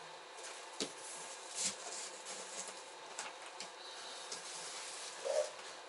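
A refrigerator's cardboard shipping box and its packing being opened by hand: rustling and rubbing with a few sharp knocks and taps.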